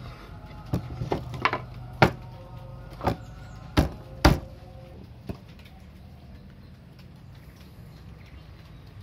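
Hard wooden clacks and knocks as a one-piece folding wooden Quran stand (rekal) is swung open on its carved interlocking hinge and set down on a bench: a quick run of sharp knocks in the first five seconds, the loudest two around four seconds in. A low steady hum runs underneath and is left alone after the knocks stop.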